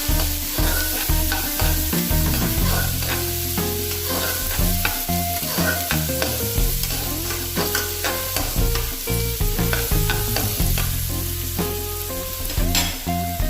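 Sliced onions and curry leaves sizzling in hot oil in a kadai, stirred with a spatula that scrapes the pan again and again, being fried until brown.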